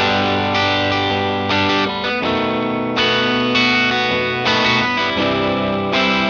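Gretsch Broadcaster electric guitar through an EarthQuaker Devices Westwood overdrive pedal into an Egnater Tweaker amplifier, playing a rock and roll riff of repeated chords. The tone is lightly overdriven, with the pedal's drive turned down and its level turned up.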